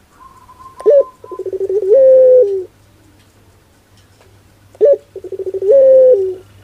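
Puter pelung, a ringneck (Barbary) dove, cooing twice. Each call is a short rising note, a fast stuttering roll, then a long drawn-out coo that drops in pitch at the end.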